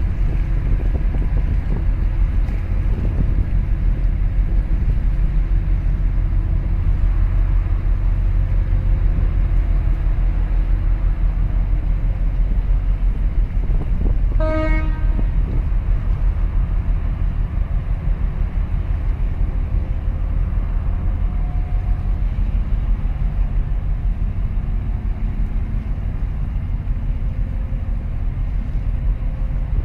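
Steady low wind rumble buffeting the microphone, with one short horn toot about halfway through.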